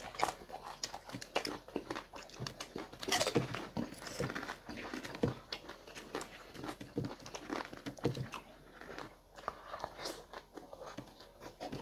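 Chewing and mouth sounds of people eating a meal with their hands: irregular wet smacks, bites and small crunches, several to a second.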